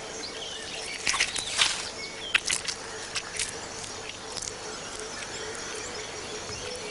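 A chameleon crunching a grasshopper it has caught: a run of short, crisp crackles between about one and four and a half seconds in. Underneath are quiet forest ambience and faint bird chirps.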